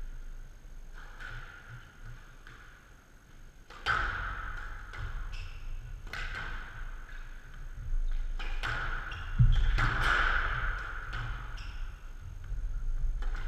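Squash rally: sharp knocks of the ball struck by rackets and hitting the court walls, a hit every second or so, starting up about four seconds in after a quieter stretch.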